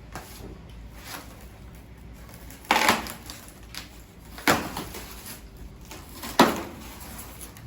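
Packaging from a boxed mirror being torn and pulled apart: three short, loud rips or crackles spaced about two seconds apart.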